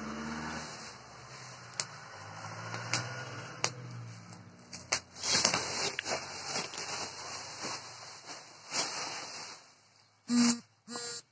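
Bubble wrap rustling and crackling as it is pulled off a machine, with a low engine hum in the first seconds. Two short loud sounds come near the end.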